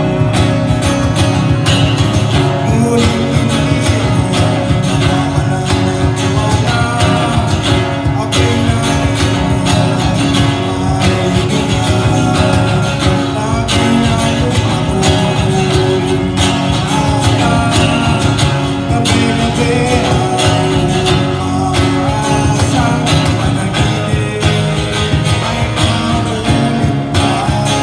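Live acoustic band music: a strummed acoustic guitar over bass with a steady beat, played as a continuous passage.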